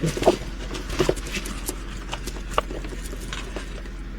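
Scattered light taps and clicks of a diamond painting kit being handled on a tabletop, a few separate knocks over a faint steady hum.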